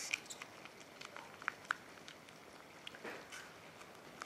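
Faint soft squelching with scattered small clicks and ticks as red bean paste is squeezed out of a plastic pouch into a casserole dish.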